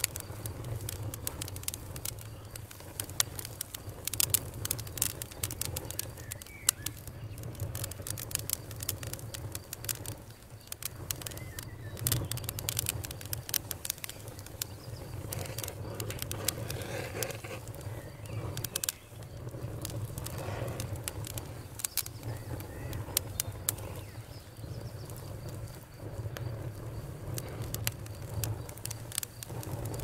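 Wood logs burning in a fireplace: irregular sharp crackles and pops over a steady low rumble of the flames.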